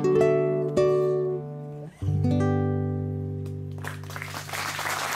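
Classical guitar playing the closing notes of a song and ending on a final chord, about two seconds in, that rings out and fades. Audience applause begins near the end.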